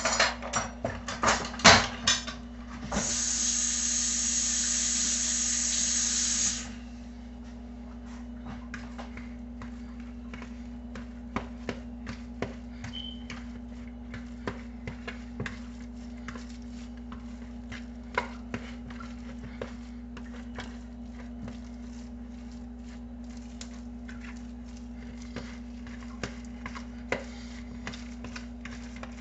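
A utensil stirring a thick mixture of grated potato, egg and seasonings in a ceramic bowl, knocking and scraping against it, with several loud knocks in the first couple of seconds and sparse faint clicks after, over a steady hum. A loud hiss runs for about three and a half seconds shortly after the start.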